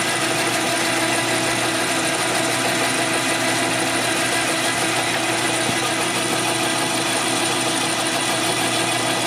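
Metal lathe running steadily under power, its motor and gear train giving an even whine of several tones, while a turning tool takes a test cut along a bar to check whether the lathe turns straight.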